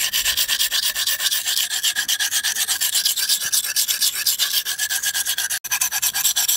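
Scout knife's steel blade stroked rapidly back and forth across the coarse side of a wet hand-held whetstone: a fast, even rhythm of scraping strokes. The coarse grit is grinding metal away to remove nicks from the edge.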